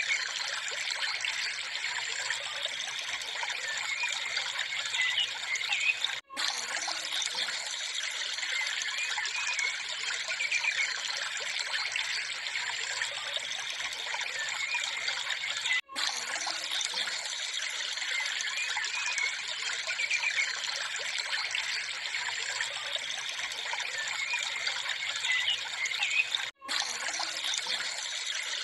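A steady hissing, trickling noise like running water, broken by three brief dropouts about ten seconds apart.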